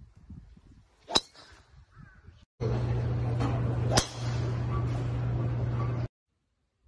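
Two golf driver shots. A sharp crack of the clubhead striking the ball about a second in, then a second crack a few seconds in over a steady low hum and noise, which start and stop abruptly.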